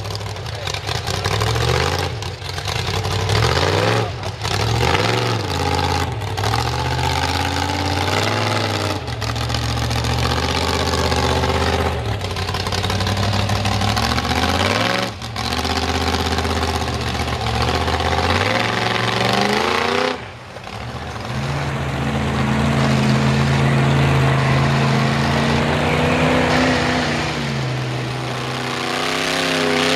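Built V8 engine of a Dodge Ram mega mud truck being revved over and over, its pitch climbing and dropping every few seconds as it works through grass and ruts, then holding a steadier, higher note later on.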